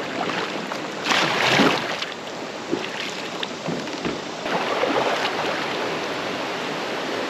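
Double-bladed kayak paddle strokes splashing in a flowing creek over the steady rush of moving water, with louder splashing about a second in and again about halfway through.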